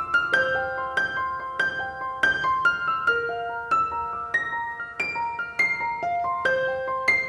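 Instrumental piano music: a gentle melody of single struck notes, about two a second, each ringing on as it fades.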